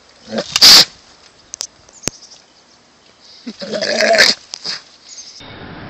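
An animal calling loudly twice: a short, very loud cry about half a second in, then a longer, wavering cry about three and a half seconds in.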